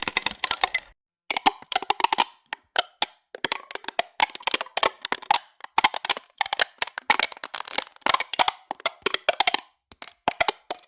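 AI-generated sound effect of an aluminium soda can being crumpled: a run of sharp crackling and crunching clicks in clusters, broken by a few short silent gaps, as several generated takes play one after another.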